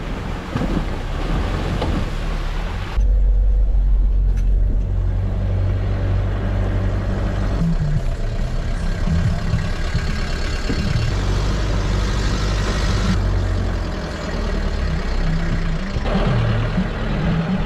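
4WD vehicle's engine running at low speed on a rough off-road track, a steady low drone with a rushing noise of the ride over it. The sound changes abruptly several times where clips are cut together.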